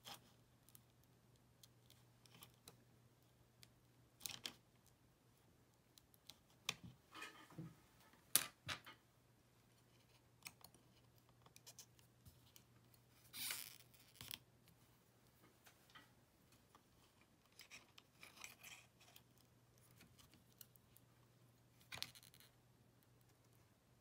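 Small hand tools (metal tweezers and a plastic spudger) clicking and scraping against an opened iPod Touch's battery and parts in scattered taps, with a longer scrape about halfway through. A faint steady low hum lies beneath.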